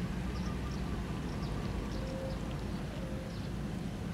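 Outdoor background noise: a steady low rumble with faint, short high chirps scattered through it.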